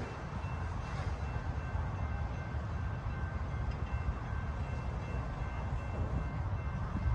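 Train cars rolling past on the rails: a steady low rumble, with a few faint steady high-pitched tones above it.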